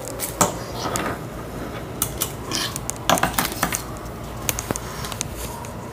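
Handling noise: irregular clicks, light knocks and rustling as a phone is moved about over a paper form on a table.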